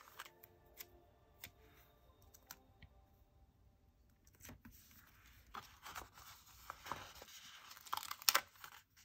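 Paper stickers being peeled off their backing sheet and pressed onto paper: a few light ticks at first, then a stretch of faint rustling and peeling from about four and a half seconds in, loudest near the end.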